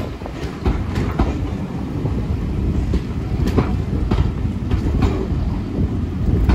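A train of passenger coaches rolling past: a steady low rumble with irregular sharp clicks and knocks from the wheels on the rails.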